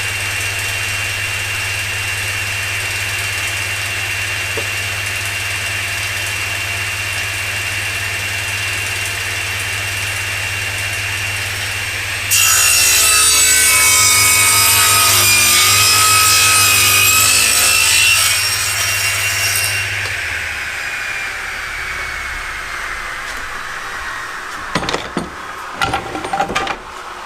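Table saw running steadily, then cutting through a wide tenon cheek on a tenon sled for about six seconds, much louder during the cut. The saw is then switched off and its blade winds down with a falling whine, and a few sharp knocks follow near the end.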